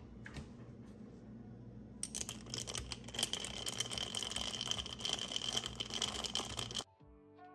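Dense, rapid crackling and clicking starts about two seconds in, runs for about five seconds, and cuts off suddenly. Soft background music then begins.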